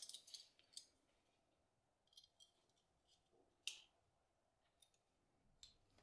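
Near silence with a few faint plastic clicks as the Kingston XS1000 portable SSD's case is handled and worked open. The clearest click comes a little past the middle.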